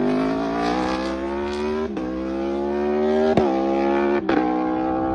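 Aprilia RSV4's V4 engine accelerating hard, its exhaust note climbing steadily in pitch. Three sharp cracks break the note along the way, and the sound drops away after a last crack near the end.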